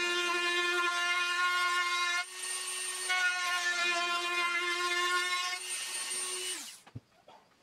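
Dremel rotary tool running at high speed against the wooden rim of a mandolin body, a steady whine over the hiss of cutting wood that falters briefly a couple of seconds in. Near the end it is switched off and spins down, falling in pitch, followed by a single soft knock.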